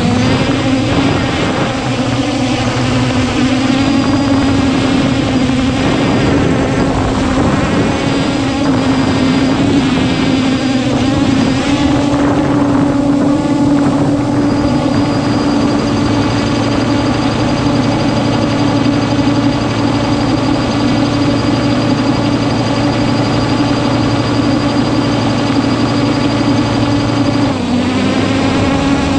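Quadcopter drone's electric motors and propellers humming up close, a steady pitched whine with a brief dip in pitch near the end.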